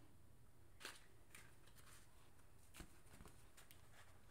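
Faint rustles and a few soft ticks from gloved hands handling a ribbon charm and paper packaging, against near silence.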